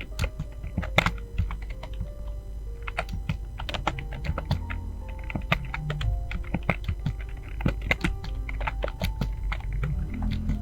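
Fast typing on a computer keyboard: a rapid, uneven patter of key clicks, with soft music underneath.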